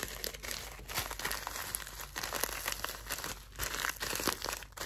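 Clear plastic zip bag of dried herbal mix crinkling as it is handled and turned over, a continuous run of small crackles with the loose herbs shifting inside.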